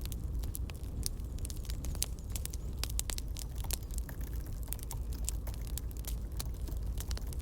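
Campfire crackling: irregular sharp pops and snaps over a steady low rumble of the burning fire.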